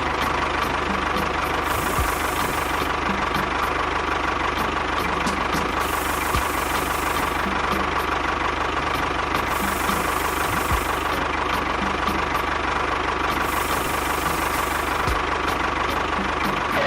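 Tractor-style engine idling steadily with a knocking beat. The same pattern comes round about every four and a half seconds, like a looped engine recording.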